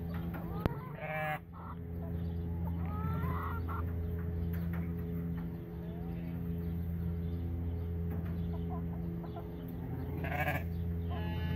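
Hens clucking, with a few short calls about a second in, around three seconds and near the end, over a steady low hum.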